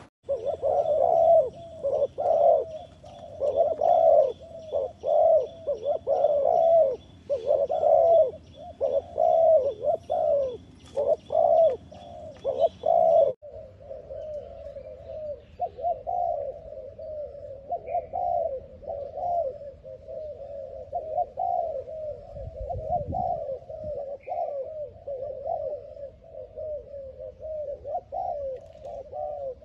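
Spotted doves cooing in repeated phrases, loud for the first half. After a sudden cut about halfway through, a softer, more continuous run of cooing follows.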